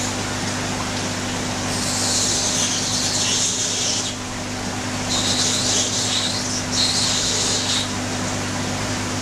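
Steady hum of running aquarium equipment over a bed of noise, with three stretches of high hiss, each a second or two long, in the middle part.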